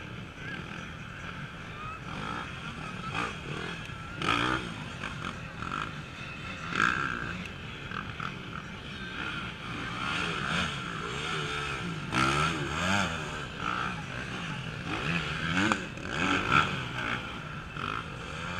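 Off-road enduro motorcycles revving hard in short bursts as they pass over a log obstacle, their engine pitch rising and falling again and again. The loudest surges come about four and seven seconds in, then through the middle and near the end.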